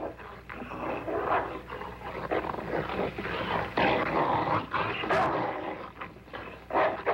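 A war dog growling as it attacks and tears at a coat, which it was trained to attack on sight.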